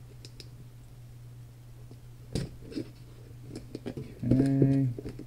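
A Kershaw folding knife slices through packing tape on a cardboard shipping box with faint scratching, and there is one sharp click about halfway through. Near the end a man hums a short note.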